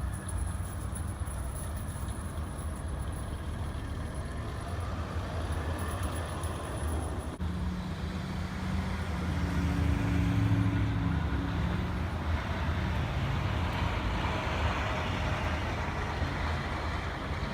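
Steady motor-vehicle engine rumble with road noise, swelling about halfway through as a heavy vehicle passes close and then easing off.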